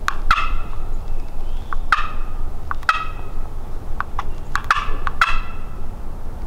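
Turkey calling: a series of short, sharp yelping and clucking notes, each falling in pitch, about five spread over the seconds with single clicks between, over a low steady rumble.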